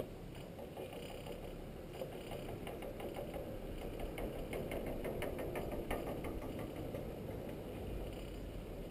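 Chairlift running: a rapid, regular mechanical clatter from the haul rope over the sheave wheels, loudest in the middle.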